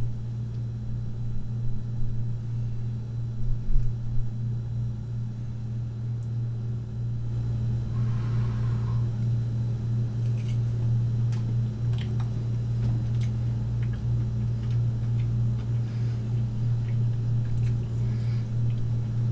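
Steady low hum, like a fan or appliance running in a small kitchen, with a few faint scattered clicks and taps.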